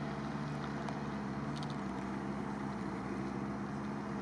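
Lada Niva engine running steadily as the 4x4 climbs a muddy hill, heard as a faint, even drone.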